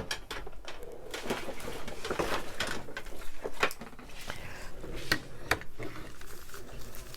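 Rustling and scattered light clicks and taps of paper and craft materials being handled and pressed down on a desk.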